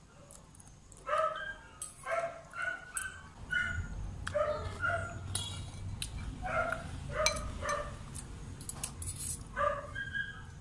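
A dog barking in strings of short, pitched yaps with brief pauses between them, alongside a few sharp clicks of metal cutlery against a ceramic bowl.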